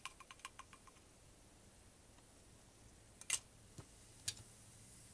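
Faint scattered ticks and clicks at a lab bench: a quick run of small ticks in the first second, then a few sharper single clicks about three to four seconds in.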